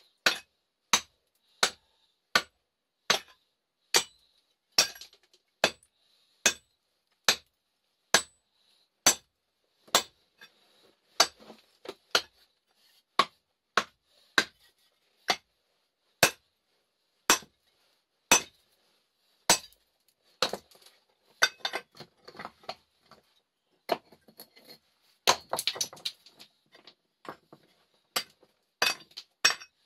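Rock being struck hard again and again, sharp clinking hits about once a second, as stone is broken up. The strikes grow less regular after the middle, with a burst of closer clattering knocks near the end.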